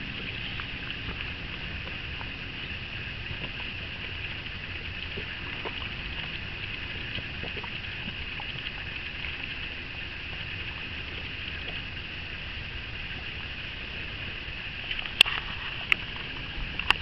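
Steady outdoor background noise with an even high-pitched hum running through it, and three sharp clicks near the end.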